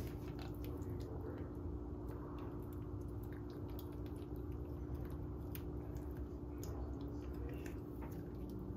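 Knife cutting the beak out of a raw squid: quiet handling with scattered small clicks, over a steady low hum.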